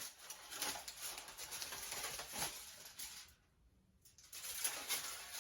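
Aluminium foil crinkling and rustling as it is handled over a pan, with a pause of about a second past the middle.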